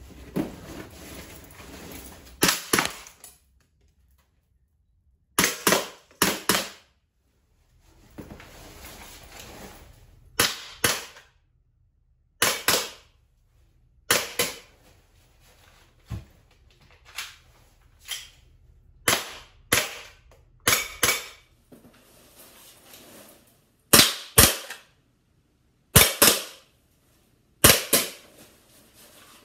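Pistol shots, about two dozen sharp cracks fired singly and in quick pairs and threes, in separate strings with abrupt cuts to silence between some of them.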